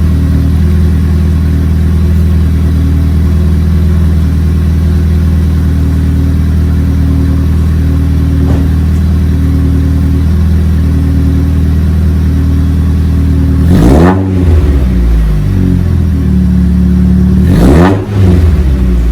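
Asüna Sunfire engine idling loud with the muffler removed, the exhaust open. It is revved twice, about two-thirds of the way in and again near the end, each time climbing and falling back to idle.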